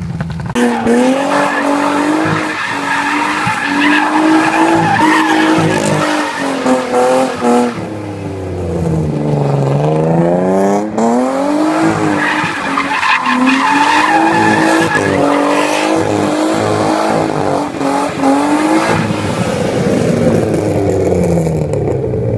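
BMW E36 drifting, its straight-six engine revving hard with the revs swinging up and down and dropping sharply then climbing back about nine seconds in, over the squeal of the spinning rear tyres.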